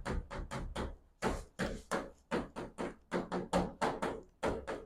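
Quick, uneven taps and scratches of writing on a board, about four or five strokes a second.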